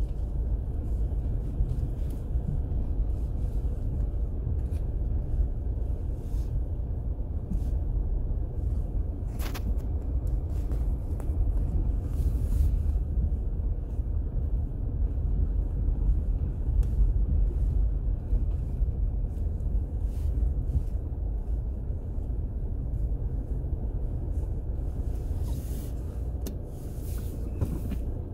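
Low, steady rumble of a car creeping along slowly, heard from inside the car, with a few faint clicks and taps.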